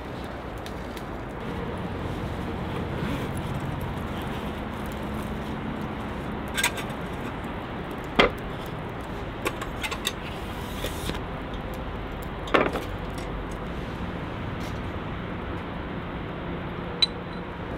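A handful of sharp, separate clicks and clinks, the loudest about 8 and 12.5 seconds in, over a steady outdoor background: camping gear being handled while a tent is pitched.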